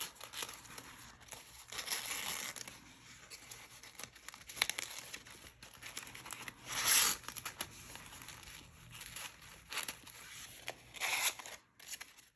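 Construction paper rustling and crinkling as paper strips are slid over and under through slits in a paper cutout and the cutout is turned over, with stronger rustles at about two, seven and eleven seconds in, the one around seven seconds the loudest.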